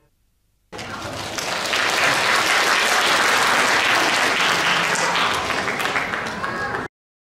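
Audience applauding. It starts suddenly under a second in, builds to a steady clapping, and cuts off abruptly near the end.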